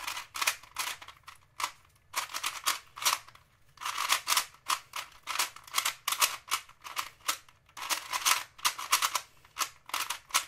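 Rapid, irregular clicking and clacking of a Rubik's Retro Cube being turned fast during a speedsolve. The cube is a plastic 3x3 with the old original Rubik's-style mechanism, its layers snapping round in quick runs of turns with short pauses between.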